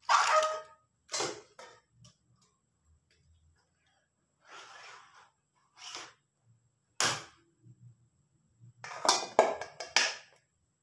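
Stainless steel bowls and a steel plate knocking and clattering on a counter and against each other as they are handled. The first knock rings briefly, a softer scrape comes about halfway, and a quick run of clinks follows near the end.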